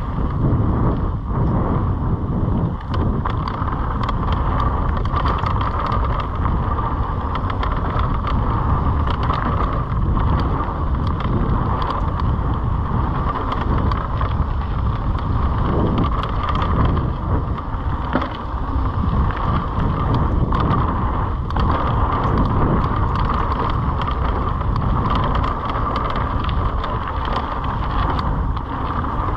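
Mountain bike descending a dirt singletrack: wind rushing over the microphone, tyres rolling on dirt, and frequent clicks and rattles from the bike jolting over bumps.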